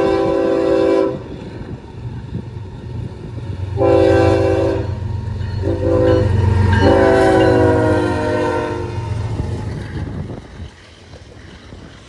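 Kansas City Southern diesel locomotive blowing its multi-chime horn in the grade-crossing pattern. The end of one long blast is followed by a long, a short and a final long blast that drops in pitch as the locomotive passes, over the low rumble of its diesel engine. The horn stops about nine seconds in, leaving the lighter noise of the train's cars rolling by.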